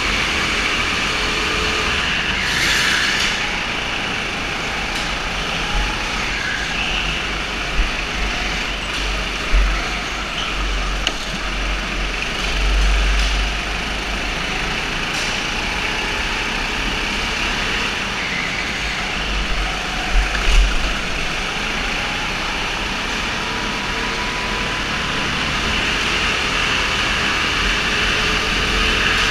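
Indoor go-karts racing: a continuous engine drone with several engines rising and falling in pitch over a heavy low rumble. A few brief knocks stand out in the middle.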